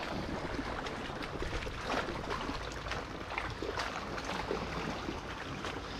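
Water lapping gently against a kayak hull: a low, steady wash with faint small splashes.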